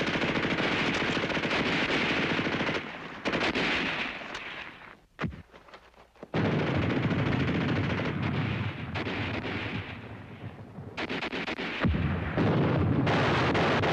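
Sustained machine-gun and rifle fire in long rapid bursts, broken by short lulls. In the lull about five seconds in there is a brief falling whistle.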